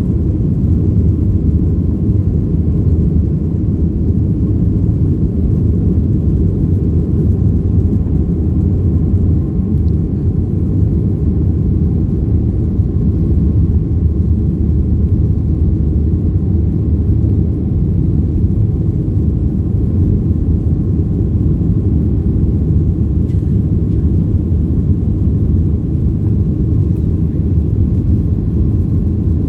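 Steady cabin noise of a Boeing 737-800 heard from inside the passenger cabin: its two CFM56 turbofan engines and the airflow make a constant low rumble with a faint steady hum above it.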